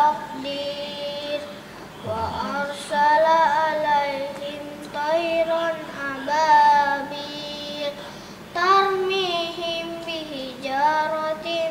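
A young boy reciting the Quran from memory in a melodic chant: several long held, ornamented phrases with brief pauses for breath between them.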